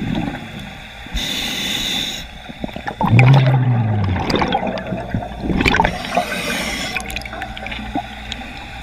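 Scuba regulator breathing underwater: a hissing inhale, then exhaled bubbles burbling out with a low falling tone, then another hissing inhale near the end.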